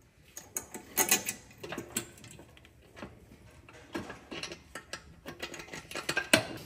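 Irregular metallic clicks and ticks as a brass fitting is turned and seated by hand in the end of a chrome tank, with sharper clacks about a second in and again near the end.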